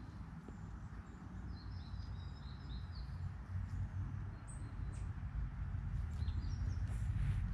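Wind buffeting the microphone as a low rumble that grows stronger toward the end, with small birds chirping in short high calls, a cluster about two seconds in and more near the end.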